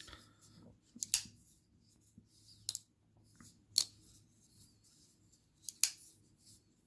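Benchmade 940 axis-lock folding knife being flicked open and shut, its blade snapping into place with sharp metallic clicks spaced a second or two apart.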